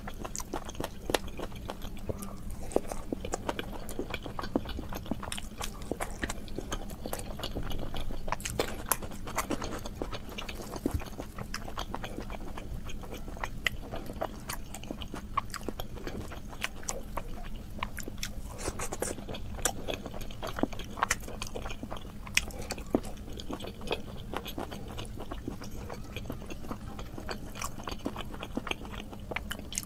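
Eating sounds of luchi (puffed deep-fried flatbread) being torn by hand, mopped through meat curry and chewed: irregular wet clicks, smacks and soft crackles throughout, over a faint steady hum.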